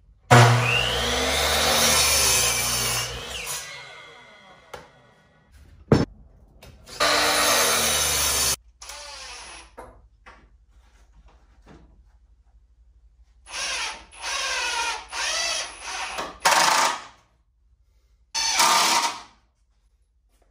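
A compound miter saw spins up with a rising whine, cuts through a 2x4 and winds down, then runs again briefly about seven seconds in. Later a cordless drill drives screws into the 2x4 frame in several short bursts, with one more near the end.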